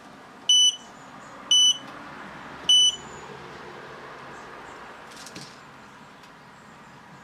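Three loud, short electronic beeps about a second apart from an H.KOENIG robot vacuum cleaner, over a faint steady background hiss.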